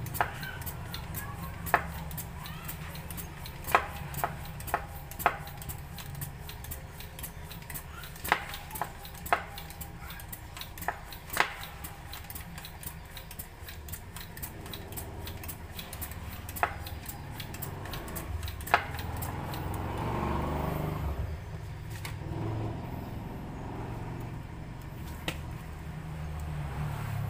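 Sharp metallic clicks and clacks at irregular intervals from a repaired foot pump being worked and tested, over a steady low hum; a passing engine-like swell comes up about twenty seconds in.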